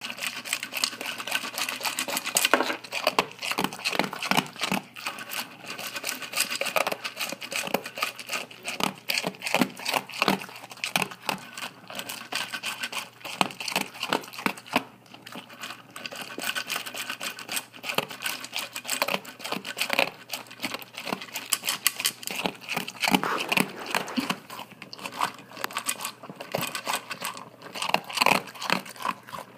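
A dog eating dry kibble fast: rapid, irregular crunching with kibble clattering against a slow-feeder bowl and its raised posts.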